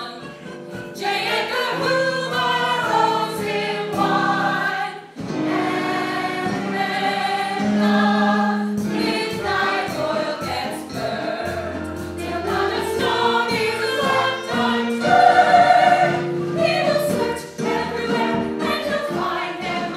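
Stage-musical ensemble of men and women singing a show tune together in chorus.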